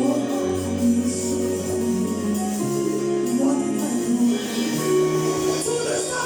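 Choir music: held sung or keyboard notes over a bass line that changes every second or two, with a tambourine jingling throughout.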